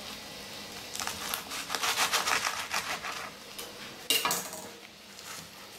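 A kitchen knife sawing through a pan-fried flour-tortilla burrito on a plastic cutting board: a quick run of scratchy back-and-forth strokes lasting about two seconds, then one sharp knock about four seconds in.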